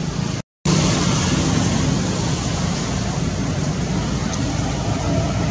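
Steady outdoor background noise with no distinct event, cut off by a brief gap of silence about half a second in, then resuming.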